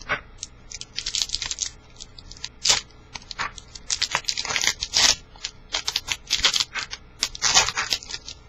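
A trading card pack wrapper being torn open and crinkled in the hands, with short rustles and clicks of cards being handled. The longer tears come about a second in, around four to five seconds in, and near the end.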